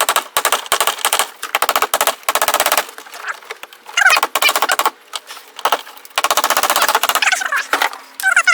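Cordless impact driver hammering in several bursts of about a second each, a fast rattle of blows, as it drives screws into the camper's wooden ceiling panel. A couple of brief high squeaks come in between the bursts.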